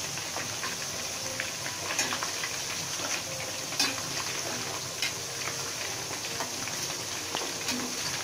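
Chicken pieces deep-frying in a stainless steel wok of oil thick with grated galangal: a steady sizzle, with a metal ladle clinking and scraping against the wok a few times as the pieces are stirred and turned.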